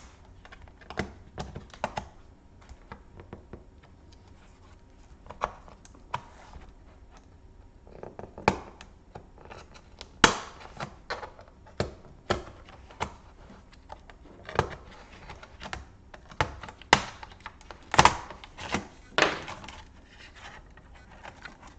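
Irregular clicks, taps and knocks of hard plastic laptop parts and small tools being handled during disassembly, with a few louder sharp snaps, the loudest about ten seconds in and again near eighteen seconds.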